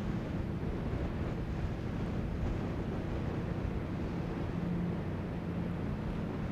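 Car ferry's engines running steadily as it approaches, a low hum under wind buffeting the microphone and the wash of water.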